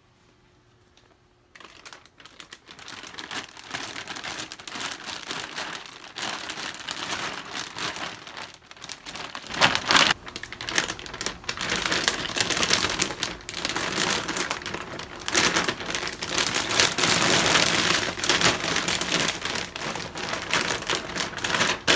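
Clear plastic JIAXIANG vacuum storage bag crinkling and rustling as folded fleece blankets and a pillow are pushed and packed into it by hand. The crinkling starts about a second and a half in and grows louder about ten seconds in.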